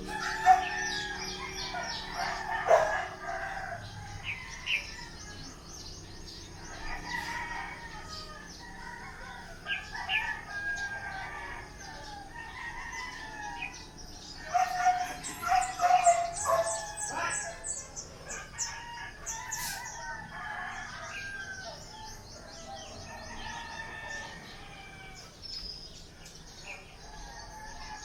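Several roosters crowing, their calls overlapping one another, with the loudest crows near the start and again about halfway through.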